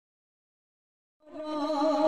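Silence, then about a second in kirtan music fades in, opening on a steady held note.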